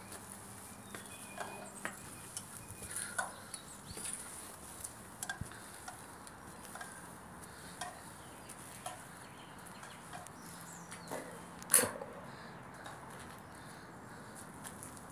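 Footsteps scuffing and tapping on gritty, debris-strewn concrete: sparse light clicks with one sharper knock near the end, over faint outdoor hiss.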